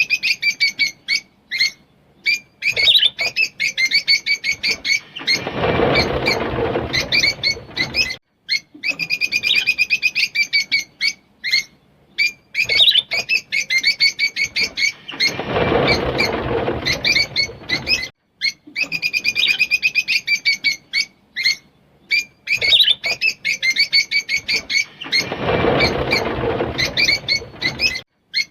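Fischer's lovebirds chirping and chattering in fast, high runs of notes. About every ten seconds comes a harsher, rougher stretch, and the same sequence repeats three times, as if looped.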